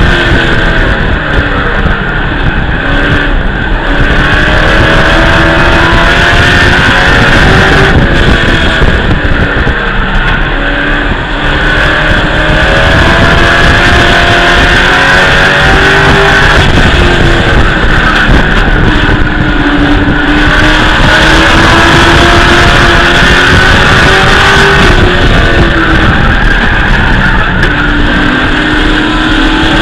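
Race truck's engine at racing speed, heard from inside the cab, loud throughout. Its pitch sags through each corner and climbs again down each straight, in several slow sweeps.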